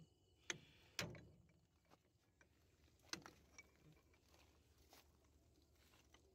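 Hammer blows on a drift held against the straw reaper's bell crank bearing, driving the worn bearing out of its housing: two sharp metal strikes within the first second, the second one ringing briefly, and another about three seconds in.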